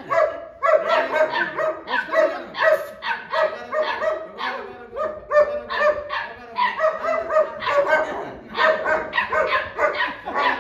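Pit bull puppy barking and yapping over and over in play, high-pitched, a few barks a second without a break.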